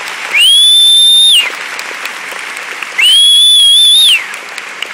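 Audience applauding, with two loud, high whistles from someone close by, each held about a second, sliding up at the start and dropping away at the end.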